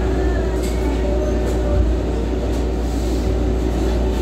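Steady mechanical rumble with a constant low hum, from machinery running. There is one short low knock just under two seconds in.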